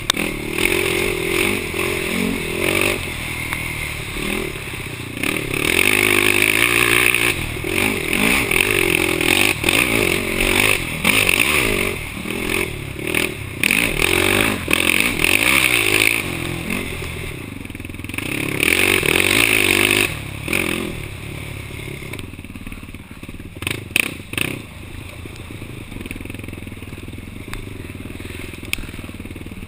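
Yamaha YFZ450 ATV's single-cylinder four-stroke engine revving up and down in repeated surges while racing over rough trail, with clattering from the machine. About two-thirds through, the engine drops to quieter running, with a few sharp knocks.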